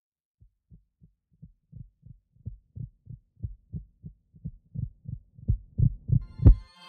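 Heartbeat sound effect: low thumps about three a second, growing steadily louder, the loudest one near the end.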